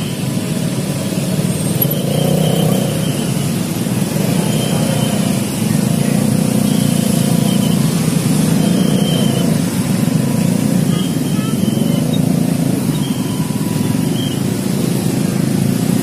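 Busy street traffic: a steady drone of motorcycle and car engines passing close by.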